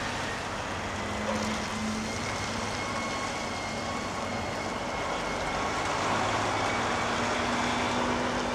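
Diesel engine of a semi tractor-trailer running as the truck moves slowly at low speed, a steady hum with faint steady tones that grows a little louder in the second half.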